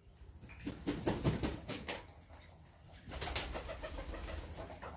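Pigeon cooing, with scattered taps and wing flaps as birds move about around a plastic water basin.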